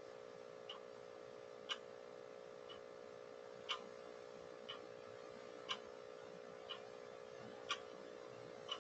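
Clock ticking once a second, the ticks alternately louder and softer, over a steady low hum.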